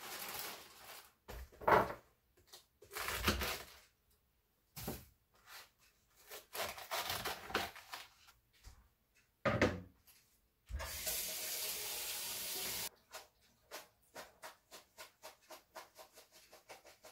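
Kitchen tap running for about two seconds midway as lettuce is rinsed in a strainer, between scattered knocks and rustles of the lettuce being handled. A run of quick, light taps follows near the end.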